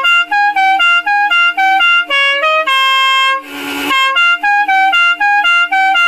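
Stebel six-trumpet musical air horn playing a tune of short notes stepping up and down in pitch, with a longer held note about three seconds in. A brief harsh noisy blast follows, and then the tune starts again.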